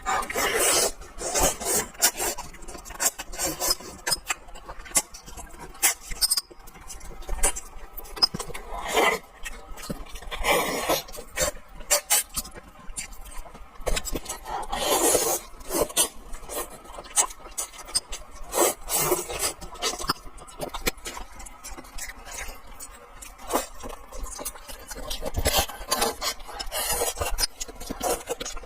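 Someone eating braised fish: irregular scraping, rubbing and clicking, with utensils against a dish, and short noisy eating bursts scattered throughout.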